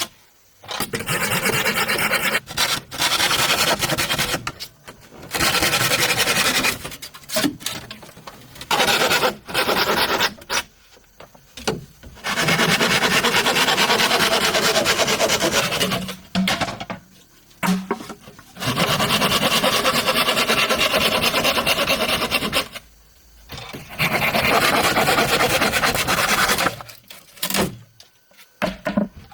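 A hand tool rasping on bamboo in long bouts of harsh scraping strokes, each lasting several seconds and broken by short pauses.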